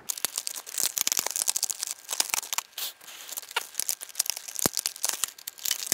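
Adhesive seal sticker being picked and peeled off a small box with the fingertips, tearing away in small scraps: a dense run of short crackling, scratching ticks.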